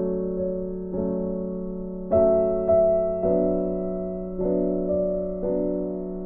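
Background piano music: gentle sustained chords, struck about once a second and fading between strikes.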